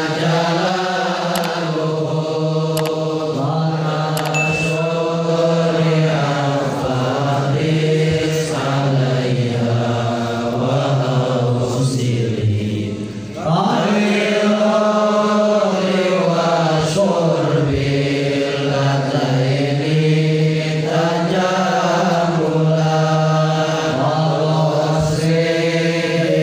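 Chanted recitation of an Arabic didactic poem (syair) in the tawil meter, on the sunnah of saying bismillah. It is sung as one slow, melodic vocal line in long phrases, with a brief breath pause about halfway through.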